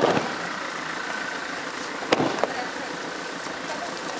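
Aikido breakfalls: a thrown partner's body hitting the foam tatami with a sharp thud at the start, and another thud about two seconds in.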